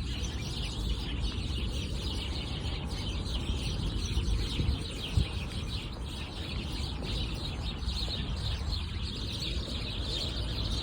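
Many small birds chirping and twittering at once in a dense, unbroken chorus, over a steady low rumble.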